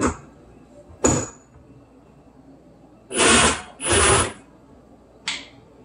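Cordless drill driving screws through the dishwasher's mounting tabs into the cabinet wood: two short runs of about half a second each, about three and four seconds in.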